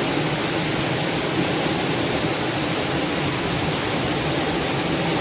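Dry Falls waterfall, heard from close up behind the falling water: a steady, even rush.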